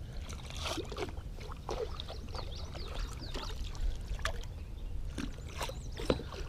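Water lapping and trickling against a fishing boat's hull under a low steady rumble, with small clicks and knocks throughout and a sharper knock near the end. A few short high chirps come about two to three seconds in.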